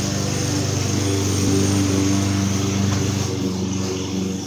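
A steady, low-pitched motor drone, even and unbroken.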